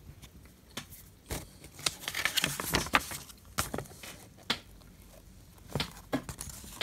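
Paper pages of an instruction booklet rustling and crackling as they are handled and turned, in a run of sharp crinkles that is densest about two to three seconds in.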